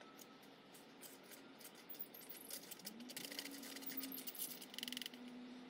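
Faint scraping and ticking of a stick stirring a wet cement-and-sand mix in a small bowl, the strokes getting busier about halfway through.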